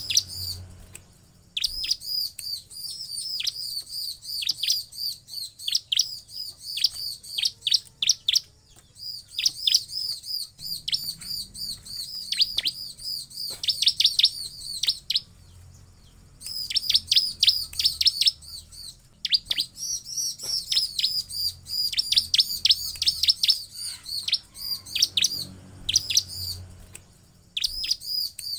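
Bar-winged prinia (ciblek) song: rapid, loud runs of high chirps, many with a quick downward sweep, repeated in bursts of a few seconds with short pauses between them.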